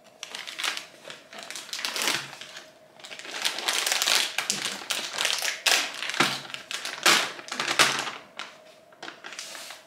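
A bag of sour gummy candies crinkling and crackling as it is opened and handled, in irregular bursts.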